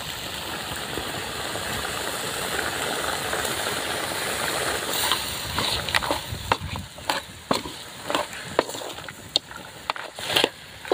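Pork pieces sizzling in a large metal pan as chilli powder is added. From about halfway on, a metal ladle scrapes and knocks repeatedly against the pan as the meat is stirred.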